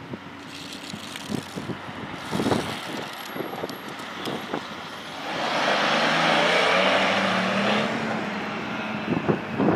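A Ford utility truck driving past close by, its engine and tyre noise swelling a little over five seconds in and dying away near the end. Irregular low thumps come before it.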